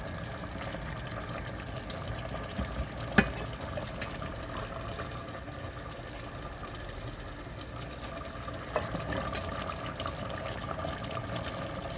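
A pot of brown stew simmering on the stove, a steady bubbling hiss, with a couple of short clicks about three seconds in and again near nine seconds.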